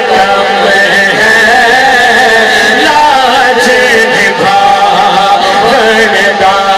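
A man's voice singing a devotional manqabat in long, held notes that waver and glide in pitch.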